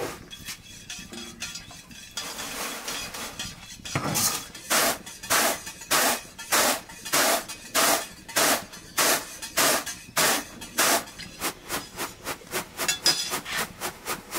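A regular series of knocking strokes, about one and a half a second, starting about four seconds in and quickening to about three a second for the last few seconds.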